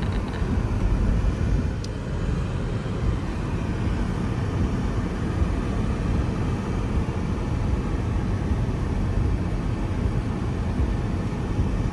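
Steady outdoor noise in the rain: a low, irregular rumble of wind buffeting the microphone, with a fainter hiss above it.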